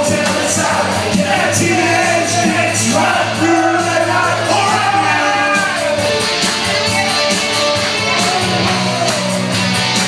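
Loud rock music with singing.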